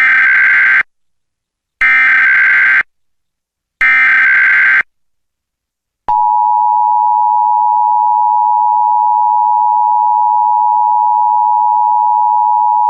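Emergency Alert System SAME header: three harsh, buzzy digital data bursts, each about a second long with about a second between them. About six seconds in, the steady two-tone EAS attention signal starts and holds.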